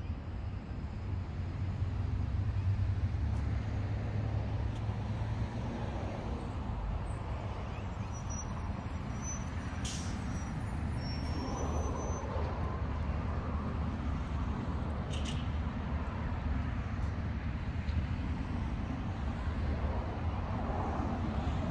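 Steady low rumble of a moving road vehicle, with a couple of faint clicks.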